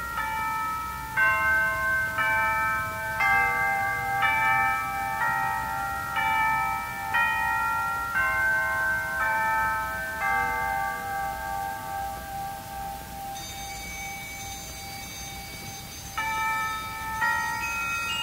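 Symphony orchestra playing a passage of bell-like struck chords, about one a second, each ringing on into the next. A little past the middle the strokes stop and a high held shimmer comes in; the struck chords return near the end.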